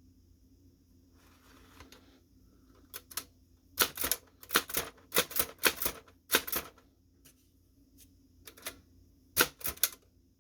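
Chicago typewriter being test-typed, its type sleeve struck for each key: sharp clacks in irregular clusters starting about three seconds in, a short pause, then a few more near the end.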